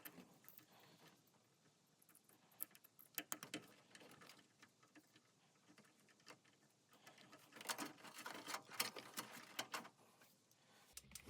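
Faint clicks and light rattling of hands reconnecting the furnace draft inducer fan's wire connectors. A few clicks come about three seconds in, and a denser run follows from about seven and a half to ten seconds.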